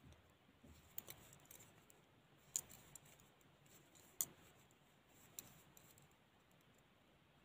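Faint clicks of double-pointed knitting needles as stitches are knitted, four sharp ticks spaced roughly a second and a half apart against near silence.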